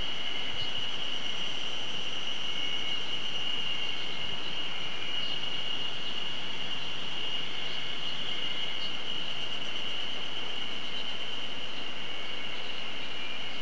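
Steady, unbroken high-pitched trilling of insects, with no pauses and only slight wavering in pitch.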